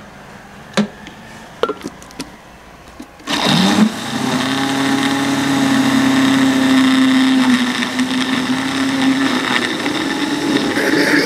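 A few clicks and knocks, then about three seconds in an electric countertop blender starts and runs steadily, grinding soaked rusk pieces and milk into a paste.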